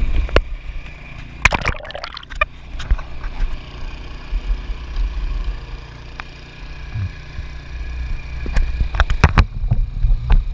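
Water sloshing and gurgling against the hull of a bamboo outrigger boat over a steady low rumble. Clusters of sharp knocks and rustles come about a second and a half in and again near the end as the net and catch are handled.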